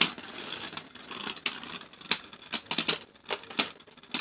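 Two Beyblade Burst spinning tops whirring and clashing in a plastic stadium: a faint spinning hiss broken by irregular sharp clacks as the tops hit each other and the stadium walls.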